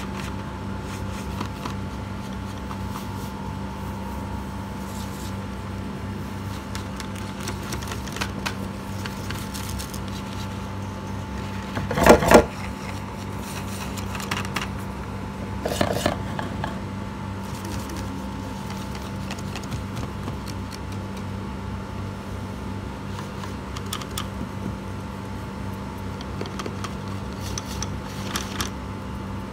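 A steady machine hum runs throughout, with light clicks and taps of wooden colored pencils being picked up and set down. A brief, louder noise comes about 12 seconds in.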